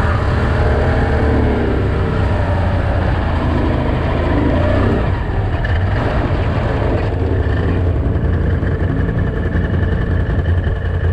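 Off-road vehicle driving fast over sand, its engine running steadily under a dense low rumble of wind on the microphone.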